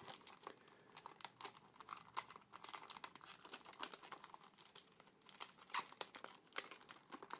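Cardboard perfume box and its folded paper-card insert being handled, giving soft crinkling and rustling with many small scattered crackles and ticks.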